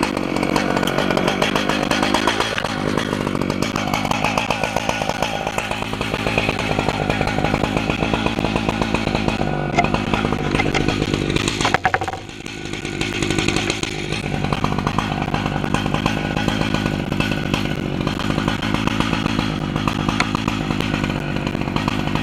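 Stihl MS880 two-stroke chainsaw running at full throttle while ripping a milling cut through an oak log on an Alaskan chainsaw mill. The engine note holds steady, drops briefly about halfway through, then picks back up.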